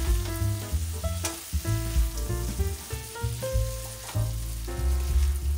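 Chopped zucchini, tomatoes and carrot sizzling in a frying pan while being stirred with a spatula, with a few scrapes of the spatula on the pan. Background music with held notes and a bass line plays throughout.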